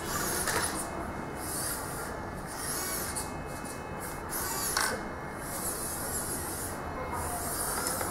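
Electric drive motor and gearbox of an HBX 2098B 1/24-scale mini RC rock crawler whirring in short bursts as the throttle is worked, each burst a high whine that rises and falls in pitch.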